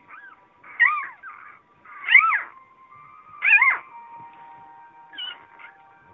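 Newborn Vizsla puppy crying in short, high squeaky whines: three loud ones about a second and a half apart, each rising and falling in pitch, with fainter squeaks before and after.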